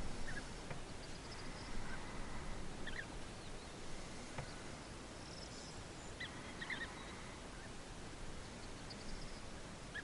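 European bee-eaters giving short, rolling calls: a couple about three seconds in and a quick cluster around six to seven seconds, over a steady hiss of outdoor ambience, with faint high chirps of other birds in the distance.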